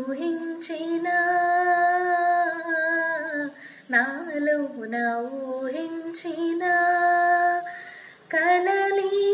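A woman singing a Telugu film song solo, with no accompaniment, holding long notes. She breaks off briefly about four seconds in and again near the end.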